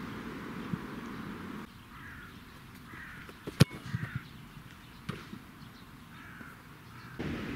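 A football struck hard once by a boot about halfway through, a single sharp thump, followed by a few lighter knocks. A bird calls several times in the background.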